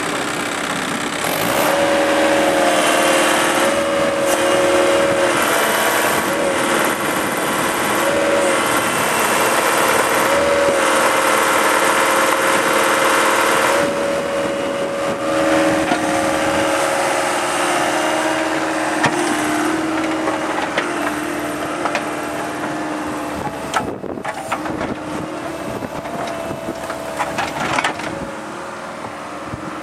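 JCB 8060 mini excavator's diesel engine running at working speed, its steady note wavering now and then as the machine is worked. Several sharp knocks come near the end as the bucket digs into dirt.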